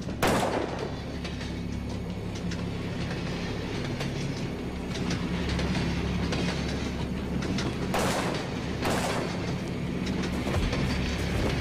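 Low, sustained droning tones of a tense film score, with sudden short rushes of noise just after the start and twice around eight and nine seconds in.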